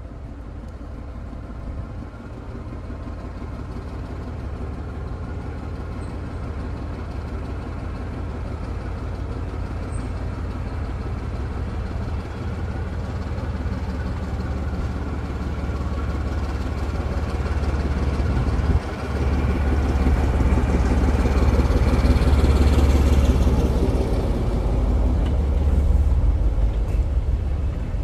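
British Rail Class 14 diesel-hydraulic shunter's engine running under load as it hauls a rake of goods wagons, with a steady low drone that grows louder as the locomotive closes in and is loudest near the end as it passes close by, the wagons rolling behind it.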